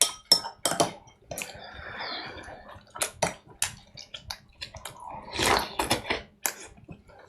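Dishes and utensils clinking and knocking, with two short spells of running or splashing water.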